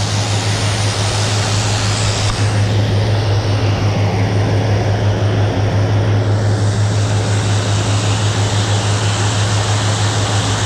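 Turboprop airliner's engines and propellers running, a loud steady low drone under a wash of engine noise.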